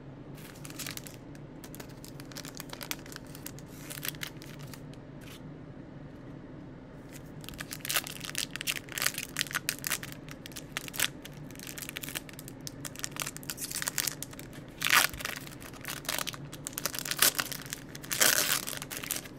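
Trading-card pack wrappers being torn open and crinkled by hand: scattered crackles at first, then a busy run of sharp tearing and crinkling from about halfway through. A steady low hum runs underneath.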